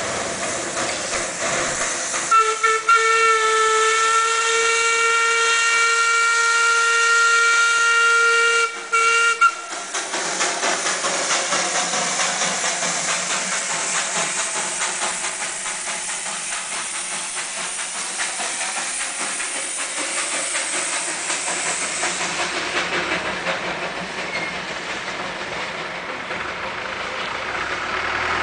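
Darjeeling Himalayan Railway Class B narrow-gauge steam locomotive hissing steam, then sounding its steam whistle in one long steady blast of about seven seconds that falters briefly near its end. After the whistle, the steam hiss carries on as the locomotive pulls away with its train.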